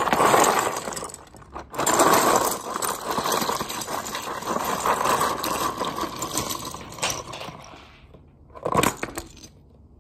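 Hard plastic Snap Ships model-kit parts poured out of their box onto a table, clattering and rattling over each other for about eight seconds, with one short rattle near the end.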